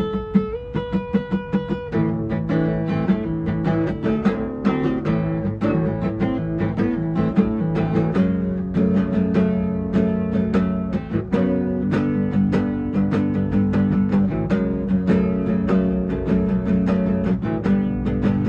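Acoustic guitar played solo, a steady run of chords and plucked notes in quick succession.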